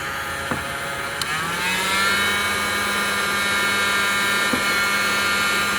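Industrial heat gun with a click about a second in, its blower spinning up in a rising whine and then running steady while it heats shrink tubing on a repaired wire.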